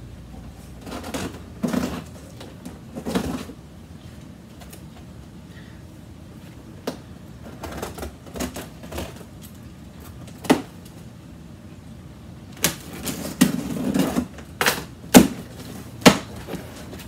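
Packing tape being cut and pulled off a cardboard shipping box: scattered rustles, scrapes and sharp clicks of tape and cardboard, coming thick and fast in the last few seconds.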